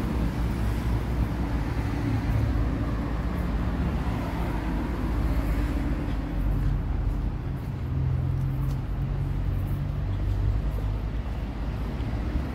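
Street traffic: car engines running close by, a steady low rumble throughout.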